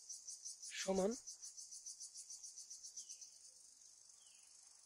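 High-pitched insect trilling, cricket-like, in a fast pulsing rhythm that smooths into a steady trill about three seconds in.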